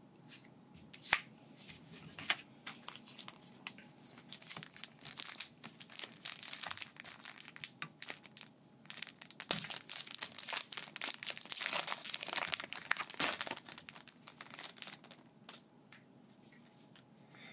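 A Pokémon card booster pack's crinkly wrapper being handled and torn open by hand: a run of crackling crinkles and small clicks, busiest in the middle and quieter near the start and end.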